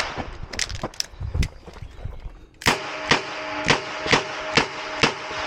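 Ruger GP100 revolver firing .38 Special: six shots in quick succession, about two a second, starting about halfway through, with a few fainter knocks before them.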